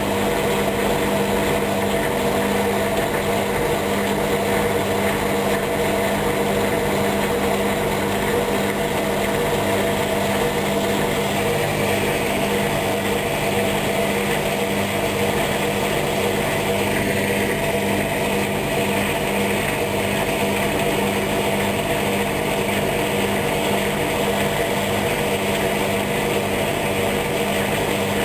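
Hoover washing machine running on its wool programme, its motor giving a steady hum and whine at constant speed.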